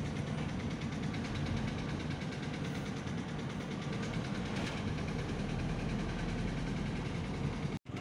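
Car engine and road noise heard from inside the cabin while driving, a steady even drone. It breaks off for a moment near the end.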